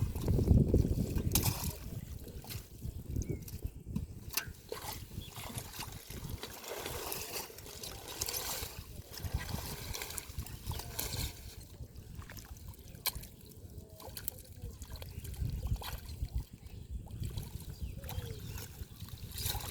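Shallow river water splashing and sloshing as hands work through it and through floating water hyacinth, with scattered small splashes and clicks. The loudest splash comes right at the start.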